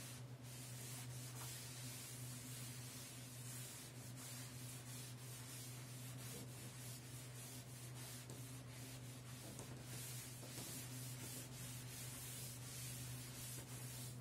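Cloth duster rubbing across a chalkboard in repeated wiping strokes, faint, over a steady low hum.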